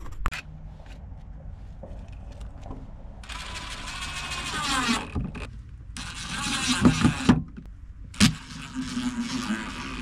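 Cordless brushless impact driver driving screws into the rim of a plastic deck plate, in three runs of whirring and rattling about three, six and eight and a half seconds in, with light handling clicks before the first.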